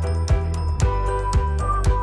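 Background music with a steady beat, about two beats a second, over a held bass line.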